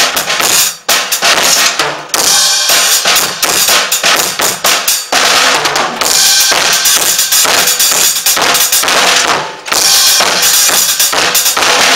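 Acoustic drum kit played loudly and fast, with rapid hits on the drums and bass drum under a constant wash of cymbals.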